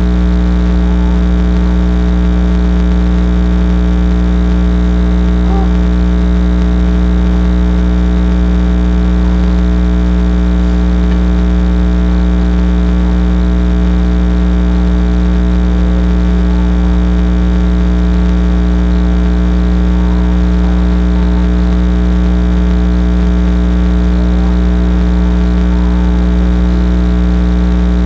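Loud, steady electrical hum with a buzzing edge that never changes in pitch or level, typical of mains hum in the recording chain. It drowns out the room, and no board-breaking impacts stand out.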